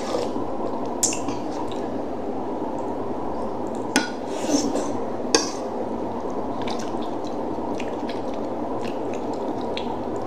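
Close-up eating sounds: wet chewing and lip smacks as a person eats rice and fish from a spoon and by hand. Short sharp clicks come about a second in and again around four to five seconds in, over a steady background noise.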